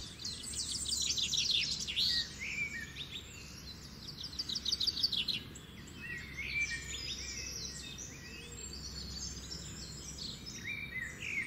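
Several songbirds chirping and singing, with quick trilled series and short whistled calls overlapping throughout, over a low steady outdoor rumble.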